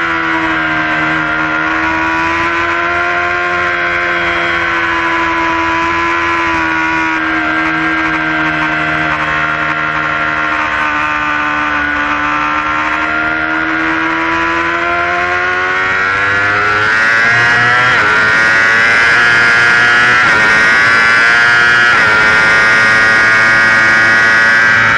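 Yamaha R6 inline-four sport-bike engine heard on board, held at steady revs through a long leaned-over corner, then revving up and getting louder about two-thirds of the way in as the bike accelerates onto the straight, the revs dropping right at the end.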